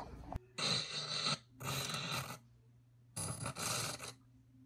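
Glitch sound effect on a video end card: three bursts of harsh static-like noise, each just under a second long, over a faint low hum.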